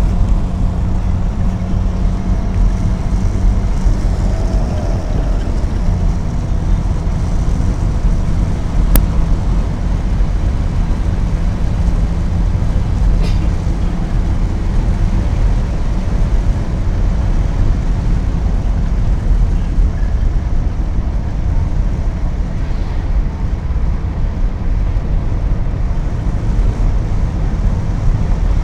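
Steady road noise inside a moving car's cabin: low engine and tyre rumble. A brief sharp click about nine seconds in.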